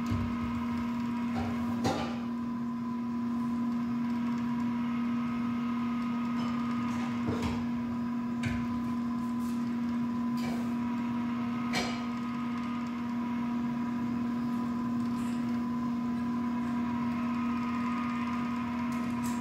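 Small geared electric motor humming steadily as it drives an animatronic whirligig figure, with a few sharp clicks and knocks from the moving mechanism.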